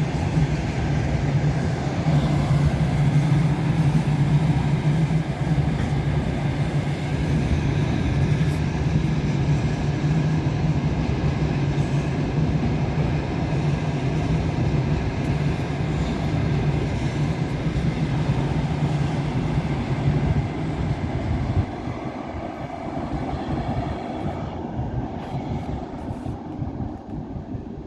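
Passenger train hauled by an EP2K electric locomotive rolling past, with a steady low hum over the noise of wheels on rail. The hum cuts out about three-quarters of the way through, and the sound then fades as the train moves away.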